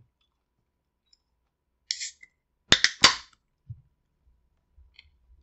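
A soda can being opened: a short scrape, then two sharp cracks as the pull tab breaks the seal with a brief fizz, followed by a soft knock.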